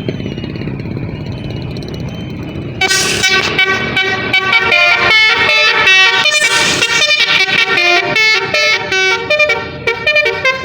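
A bus's telolet basuri horn module playing a fast melody of quickly changing notes, starting about three seconds in. Before it, a low engine and road rumble.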